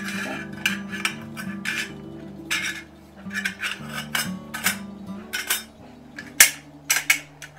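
Stainless steel potato ricer being handled: a quick series of sharp metallic clicks and clinks as its parts and perforated disc are worked inside the cup, one especially loud clack near the end. Soft background guitar music plays underneath.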